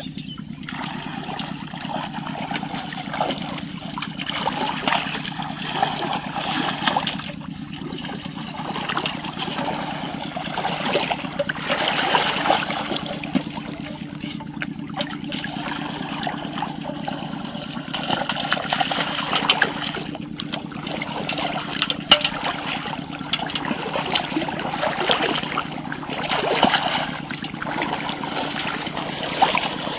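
Water splashing and trickling, rising and falling unevenly, over a steady low hum, with a few sharp clicks.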